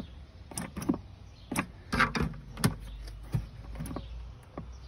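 Irregular clicks and knocks, about nine in a few seconds, from working the solar tracker's control gear, over a steady low hum. No motor runs: the tracker does not move, which the owner takes for a seized linear actuator.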